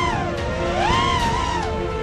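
FPV racing quadcopter's brushless motors and propellers whining, the pitch swooping up and down twice with the throttle, over background music.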